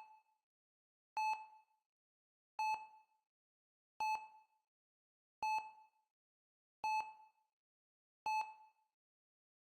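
Hospital heart rate monitor beeping steadily: one short, single-pitched electronic beep a little under every second and a half, each dying away quickly, with silence between.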